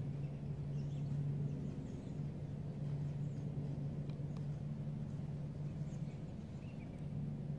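A steady low hum carries on without a break. Faint, short high bird chirps are scattered over it, with a couple of faint ticks about four seconds in.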